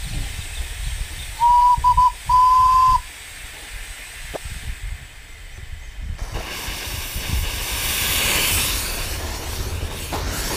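Miniature steam locomotive's whistle blowing three times, two short toots and a longer one. A few seconds later a loud hiss of steam starts suddenly, swells and then eases.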